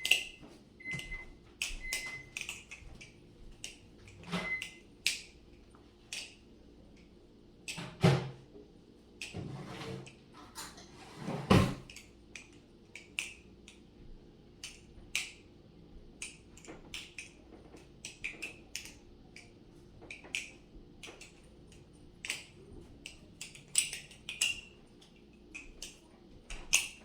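Marcolo C116 aluminium balisong trainer being flipped: irregular metallic clicks and clacks as the handles swing around and close against each other, with a couple of harder clacks in the middle.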